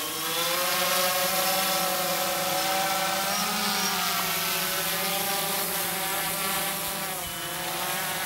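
Multirotor drone's propellers whirring steadily: a whine of several pitches that wavers slightly up and down as the motors adjust, over a strong hiss.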